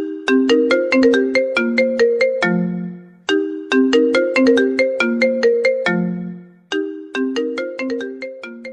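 Mobile phone ringtone: a short melody of quick struck notes, each fading after it is hit, played three times over, each phrase ending on a low held note.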